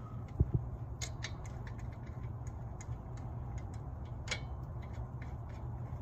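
Light metal clicks and ticks of brake caliper bolts and caliper hardware being handled and threaded in by hand, scattered every few tenths of a second, with a couple of dull knocks about half a second in, over a steady low hum.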